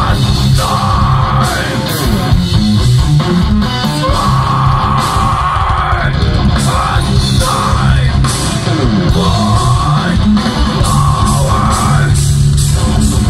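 Heavy rock band playing loud: distorted electric guitar over drums with frequent sharp hits.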